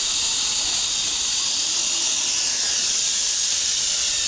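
WLToys V262 quadcopter's brushed motors and propellers running at flight speed: a steady, high whirring hiss, with a motor note sliding down in pitch about halfway through.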